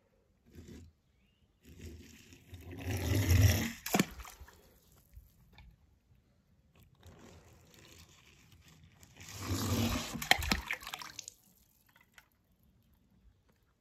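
Two water splashes a few seconds apart, about three and ten seconds in, as toy cars plunge into a pool of water, each a short rush of water ending in a sharp click.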